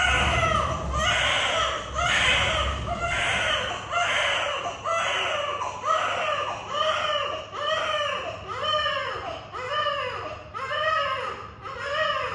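A newborn baby crying steadily, a run of short wails that rise and fall in pitch, about one a second.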